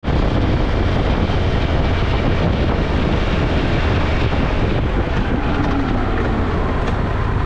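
Adventure motorcycle being ridden along the road: a steady roar of wind buffeting the bike-mounted camera's microphone over the engine's running.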